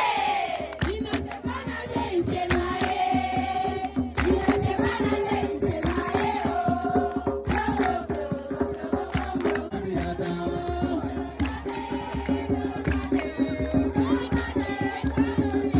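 A group singing a song together over steady hand percussion, the voices rising and falling throughout.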